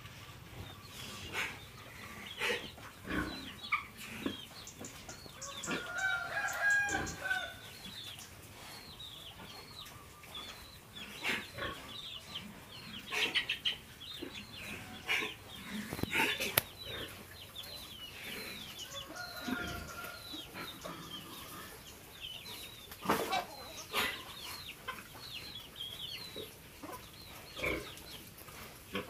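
Chickens clucking and calling, with many short falling peeps and a few longer calls, over scattered sharp knocks.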